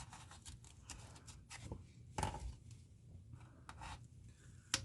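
A hand tool scraping and picking at plaster scenery, digging out a hole for a crossing gate: light irregular scratches and small knocks, with a sharper tap about two seconds in and another near the end.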